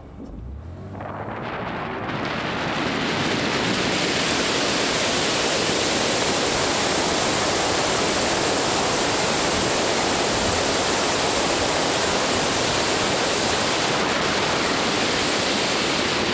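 Wind rushing over a hood-mounted action camera's microphone as the car picks up speed on a dirt road: a loud, steady rushing noise that builds over the first three seconds, then holds.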